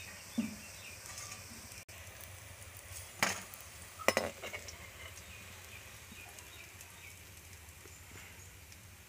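Pumpkin-flower fritters in gram-flour batter deep-frying in oil in a metal kadai, a steady sizzle. A metal slotted spoon clinks and scrapes against the pan three times as the fritters are lifted out.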